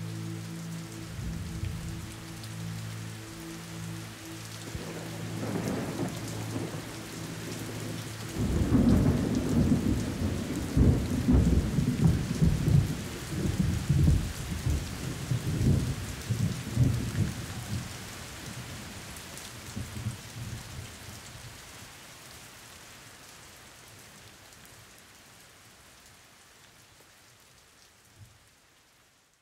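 Rain falling with rolling thunder as a track's closing effect. Held low musical notes fade out within the first few seconds. Heavy rumbles of thunder come in about eight seconds in and die away, and the rain slowly fades to nothing near the end.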